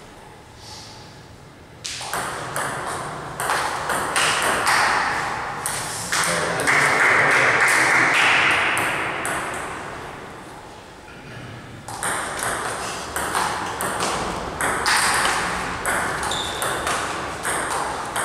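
Table tennis ball clicking off rubber paddles and the table in two quick rallies. Between them, about six seconds in, comes a louder burst of noise lasting a few seconds.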